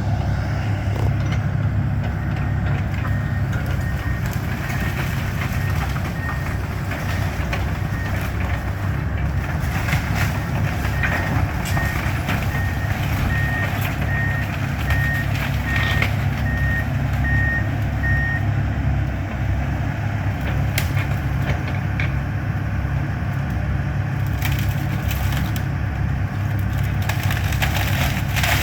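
Excavator diesel engine running steadily, its travel alarm beeping about once a second in two runs, with sharp cracks of wood splintering and being crushed as the house comes down.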